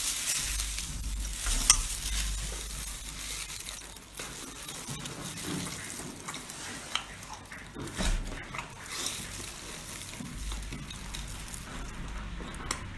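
Wet, sticky crackling and squelching of a sauce-covered spiny seafood being handled and pulled apart in plastic-gloved hands, with many small sharp clicks and snaps throughout.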